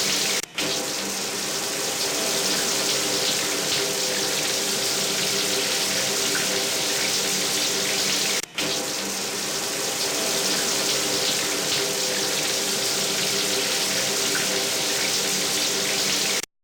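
Shower running: a steady hiss of spraying water with a few faint steady tones underneath. It drops out for an instant twice, about half a second in and about halfway through, and cuts off suddenly near the end.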